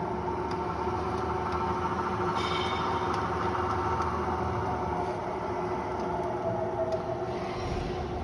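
Clausing 20-inch variable-speed drill press running, its motor and spindle drive giving a steady hum with a steady whine, and a brief higher whine about two and a half seconds in.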